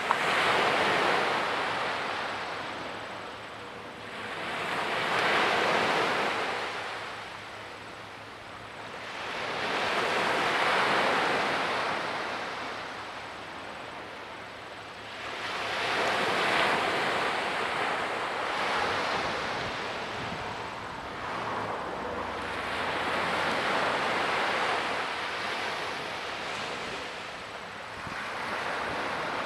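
Small waves breaking and washing up on a sandy beach: a hiss of surf that swells and fades about every five or six seconds.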